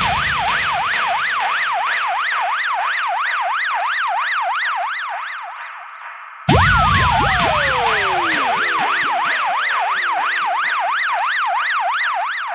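Electronic yelp-type siren, a fast rising-and-falling wail about three times a second. It fades out, then starts again abruptly about six and a half seconds in, opening with a long falling swoop, and fades again near the end.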